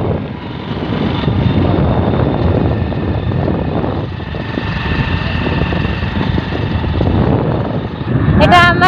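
Wind rushing over the microphone and road noise from a moving motorbike, a steady loud rumble. Music with singing comes in near the end.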